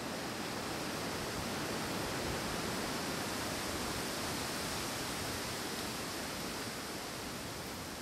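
Wind blowing through forest trees, a steady rushing that swells slightly around the middle and eases again.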